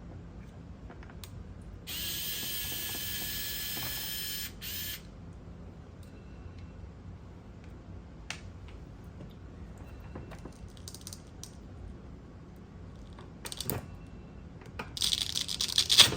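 A small 2.5 mm driver working on the screws of a radio-control transmitter: a steady high-pitched whir for about two and a half seconds, a short burst just after, light clicks and handling, then more whirring near the end.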